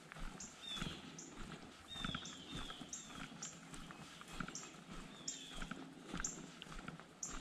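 Footsteps on a dirt trail, with birds calling: short high chips and a few falling whistled notes repeating throughout.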